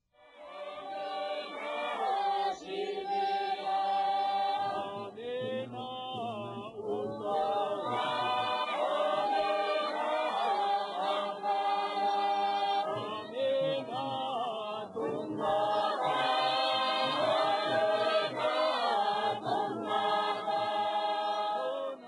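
Bunun voices chanting together without instruments, several held notes sounding at once and shifting in pitch, in the ritual chant of the hunting-gun ceremony. The chant starts at the very beginning.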